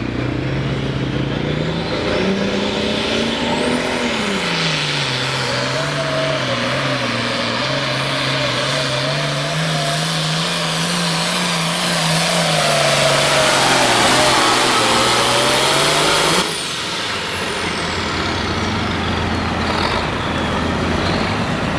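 1975 International Harvester 1566 hot stock pulling tractor's turbocharged diesel at full throttle pulling a weight-transfer sled. The engine note climbs at the launch, then wavers up and down under load. About sixteen seconds in, the throttle is cut sharply and the engine falls away while a high turbo whine winds down.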